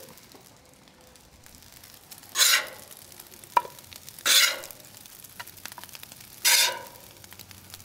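Metal spatula scraping across the hot steel top of a Loco flat-top griddle as fried rice is scooped into a wooden bowl: three scrapes about two seconds apart, with one sharp click in between. A faint sizzle runs under them.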